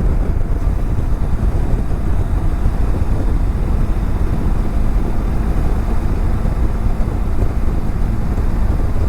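Riding a BMW F700GS motorcycle: steady wind rush on the helmet-mounted camera with the engine running underneath, an even low rumble with no break.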